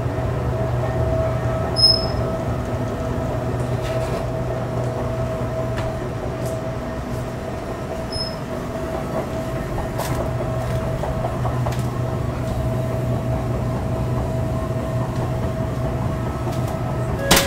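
2013 KONE escalators running: a steady drive hum with a constant whine over it. Two short high clicks sound, about two seconds in and again about eight seconds in.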